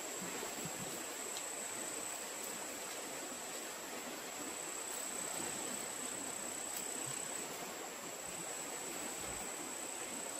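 A steady high-pitched insect drone, unbroken throughout, over an even background hiss of woodland ambience, with a few faint light clicks.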